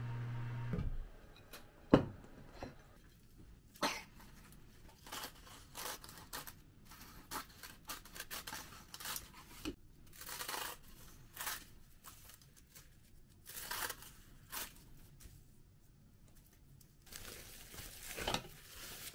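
Kitchen scissors snipping through a sheet of dried nori seaweed in a series of short, crisp cuts, after a sharp knock about two seconds in. Near the end a metal spoon scrapes and stirs rice in a glass bowl.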